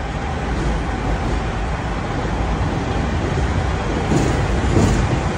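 Steady low rumble of street traffic and heavy vehicles, getting a little louder about four seconds in.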